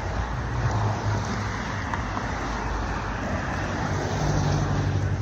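Road traffic going by: steady tyre and engine noise, with one vehicle's engine hum growing louder about four seconds in as it passes close.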